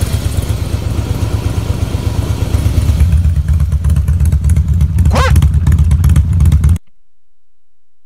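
Harley-Davidson Fat Boy S V-twin running, a pulsing low exhaust rumble through chrome twin pipes that gets louder about three seconds in. A short high rising-and-falling glide sounds near five seconds, and the engine sound cuts off suddenly near seven seconds.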